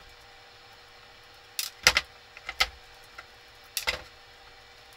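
Sharp clicks and clinks of small hard parts and tools being handled while a paint sprayer is taken apart: a cluster of clicks about two seconds in and another near four seconds.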